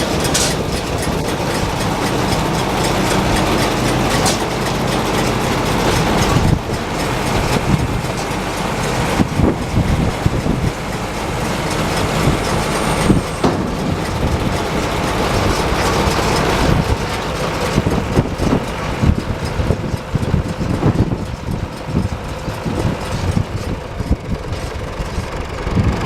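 Tractor engine running steadily, driving a Case IH RB464 round baler. From about six seconds in, uneven clanking and rattling from the machinery joins the engine.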